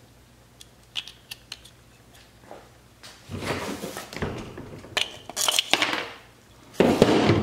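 Handling noise of 3D-printed PLA plastic parts: a few light clicks, then scraping and knocking as a small spacer is worked out of a sword-handle piece and drops onto the workbench. The loudest knocks come near the end.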